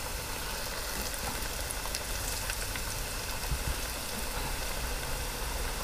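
Battered bacon strips deep-frying in hot oil in an electric deep fryer: a steady sizzle with scattered small crackles.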